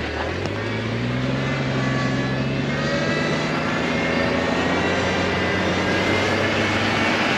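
Truck engine picking up revs over the first couple of seconds, then pulling at a steady pitch while driving through deep snow, heard from outside the cab.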